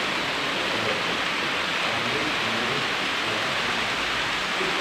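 Model train, two electric locomotives hauling freight wagons, rolling along the layout's track: a steady, even whirring hiss.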